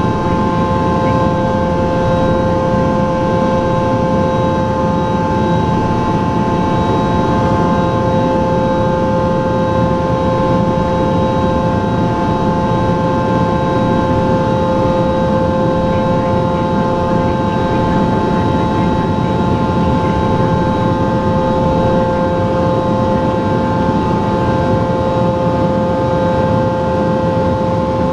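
Cabin noise of a Cessna Citation Sovereign climbing out, its rear-mounted Pratt & Whitney Canada PW306C turbofans giving a steady whine of several high tones over a dense, even drone of engine and airflow.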